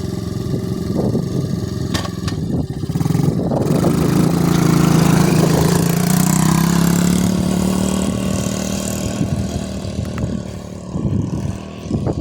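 Vax Airlift Steerable Pet Max upright vacuum cleaner running with a steady motor hum and whoosh, growing louder for several seconds in the middle, with a few knocks and clicks.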